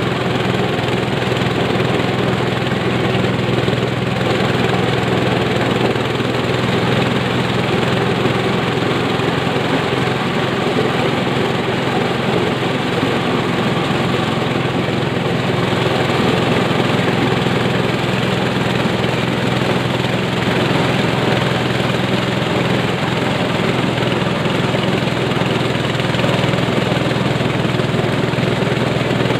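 Engine-driven corn sheller running steadily while shelling corn, a constant machine drone that does not change.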